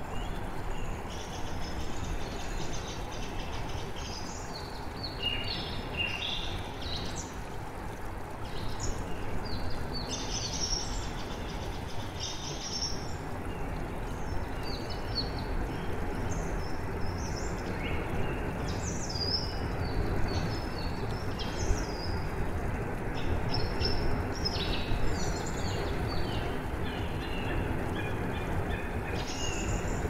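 Steady rush of falling water, with songbirds chirping and trilling in short, high phrases over it throughout.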